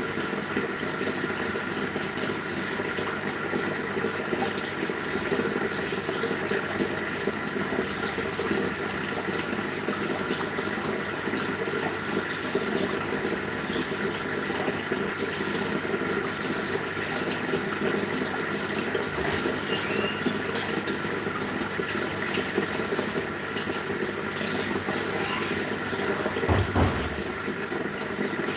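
Aquarium air stones bubbling steadily, a constant rush of rising bubbles with a steady hum under it. A brief dull low thump sounds near the end.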